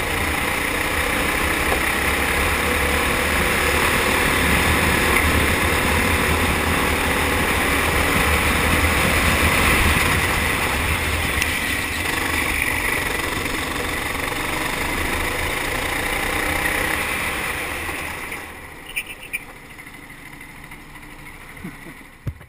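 Four-stroke rental kart engine running at speed, heard onboard with wind noise on the camera, then dropping away sharply about eighteen seconds in as the kart slows right down. A few short clicks sound in the quieter part near the end.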